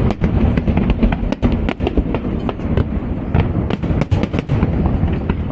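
Fireworks display finale: a dense, continuous barrage of booming shell bursts with many sharp cracks overlapping.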